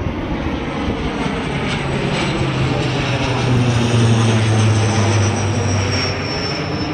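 Fighter jet flying past, its engine noise swelling about halfway through, with a thin high whine sliding slowly down in pitch as it passes.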